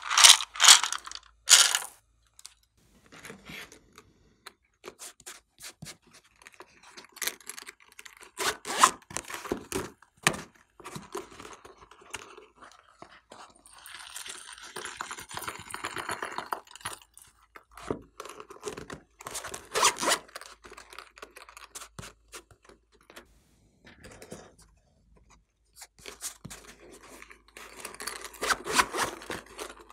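Slime being mixed and worked: irregular sticky crackling and clicking in bunches, loudest at the very start, with further bunches about a third of the way in, two thirds in and near the end.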